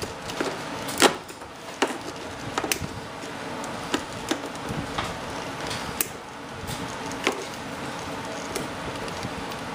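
Cutters snipping through plastic pneumatic air lines: a string of sharp snips at uneven intervals, the loudest about a second in, with light handling of tubing and wires between.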